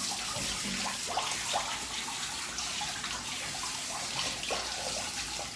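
Water running steadily from a shower into a bathtub, an even hiss.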